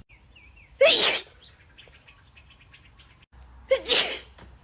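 A woman sneezes twice, about three seconds apart, each a short 'ah' breaking into a sharp, hissing blast.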